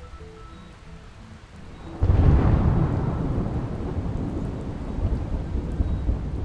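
Rain falling on water, with a loud roll of thunder that breaks in suddenly about two seconds in and rumbles on, slowly fading.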